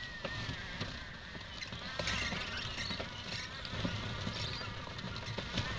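Child-sized ride-on model tank driving over packed snow: its tracks click and clatter, with a faint wavering motor whine and a low rumble underneath.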